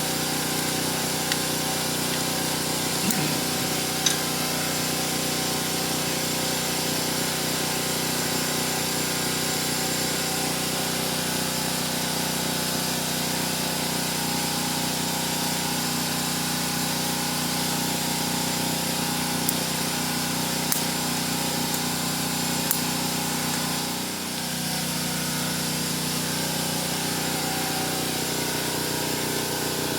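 A small engine or motor running steadily at constant speed, with a few faint clicks over it.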